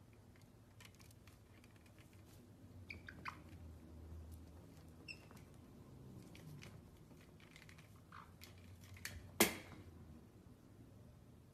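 Caique parrots make faint scattered taps and scratches as they move about a couch. A few short squeaky chirps come around three, five and eight seconds in, and one sharp, louder click comes about nine and a half seconds in.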